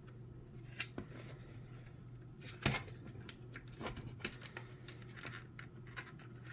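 Scattered clicks and light rustling of plastic parts being handled as a cordless leaf blower is taken apart, with the sharpest click about two and a half seconds in.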